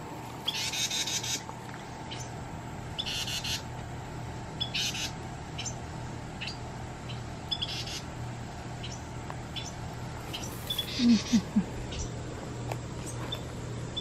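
Carolina wrens giving harsh, raspy chatter calls in four short bursts a few seconds apart, with scattered sharp chip notes between. A brief low human murmur comes about eleven seconds in.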